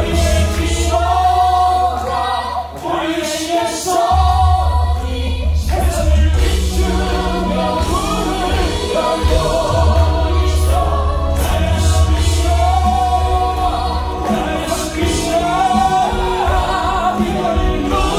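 Stage-musical cast singing an ensemble number over an accompaniment with a heavy bass line; the bass drops out for a couple of seconds about two seconds in, then comes back under the voices.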